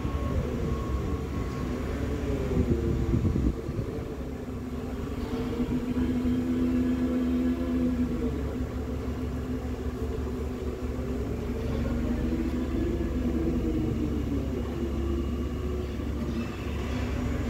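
Gunther GPA 600K vacuum tumbler running with its drum turning: a steady machine hum over a low rumble, its pitch wavering slowly up and down, with a few louder knocks about two to three seconds in.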